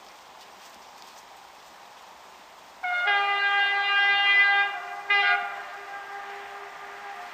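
Train horn sounding about three seconds in: a long blast, then a short second blast about two seconds later, its note lingering as it fades. A rising rush of train noise follows near the end.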